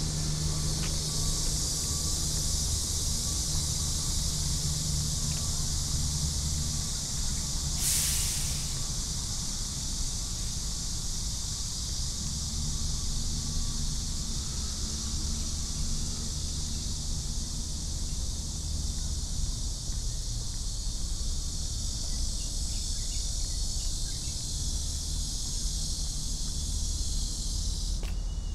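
Cicadas droning in a steady, high-pitched chorus over a low, steady rumble. The chorus cuts off suddenly near the end, and a brief swish sounds about eight seconds in.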